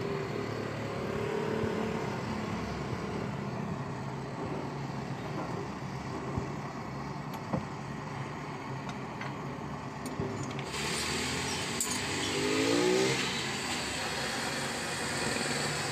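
Low steady background rumble. About eleven seconds in, a gas blowtorch's flame comes in as a steady hiss, with a brief rising whine soon after.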